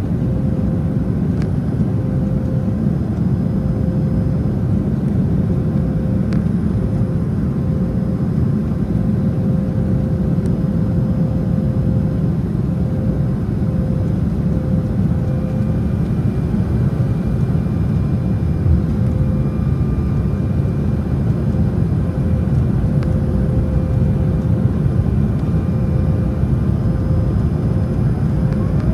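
Steady in-flight cabin noise inside an Embraer E175 airliner: a constant low rumble of its GE CF34 jet engines and the airflow past the fuselage, with a faint steady hum running through it.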